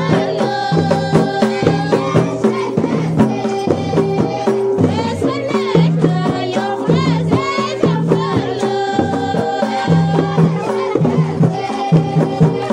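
Ahwash, Amazigh folk music: voices singing together over a steady, fast beat of frame drums.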